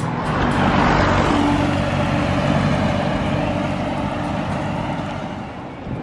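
A motor vehicle driving past, engine and tyre noise loudest about a second in and then slowly fading away.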